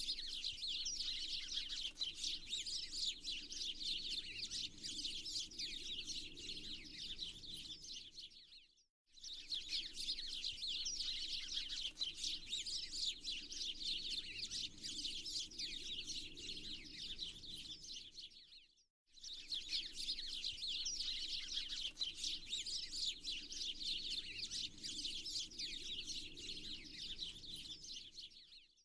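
A dense chorus of small songbirds chirping and twittering rapidly. The chorus breaks off for a moment and starts again about every ten seconds, like a repeating ambience loop.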